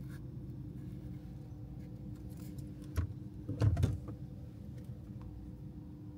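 Steady low background hum with a sharp knock about three seconds in and a short cluster of louder thumps and rattles just after.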